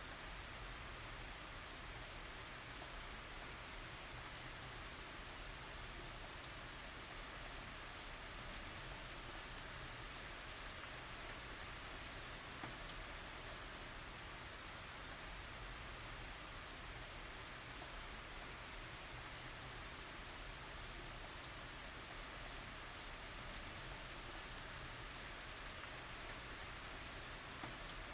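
Steady rain falling and pattering on surfaces, an even hiss of drops with no thunder.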